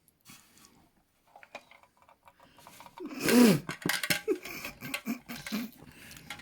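A person's voice: a loud drawn-out exclamation falling in pitch about three seconds in, followed by a run of short voiced bursts, after a few seconds of faint clicks and rustling.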